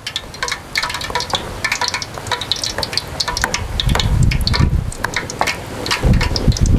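Metal tongs clicking and scraping against food and a plastic basin as the food is tossed, over a steady frying hiss. Dull low rumbles come in about four seconds in and again about six seconds in.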